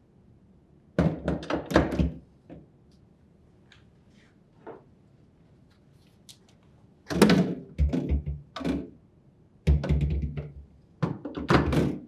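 Refrigerator glass shelf assemblies being hooked into their slotted wall rails and set down, knocking and clattering. The knocks come in bouts, one about a second in and several more from about seven seconds on.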